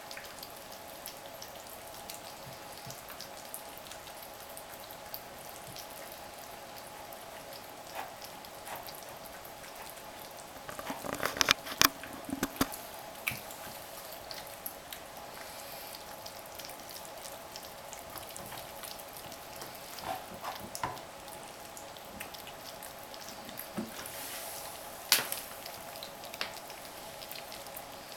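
Egyptian Mau kittens eating wet food together from one dish: a stream of small wet smacking and licking clicks over a steady hum. A burst of louder clicks and knocks comes about eleven seconds in, and a single sharp click near the end.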